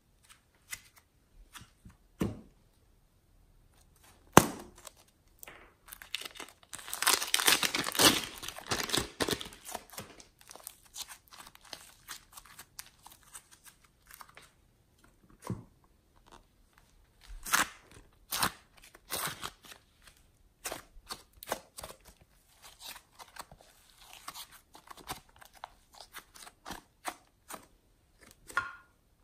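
Glossy slime being stretched, pulled apart and dropped into a glass tray: sticky crackling and tearing with many small clicks, densest about seven to ten seconds in.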